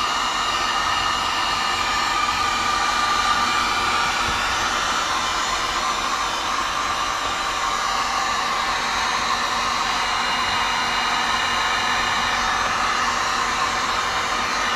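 Electric heat gun running steadily, a constant rush of blown air with a faint whine, shrinking heat-shrink tubing over wire connections.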